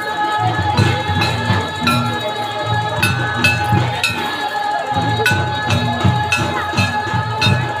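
Santali folk dance music: drums beating a steady repeating rhythm, with held high tones and sharp clicks over it.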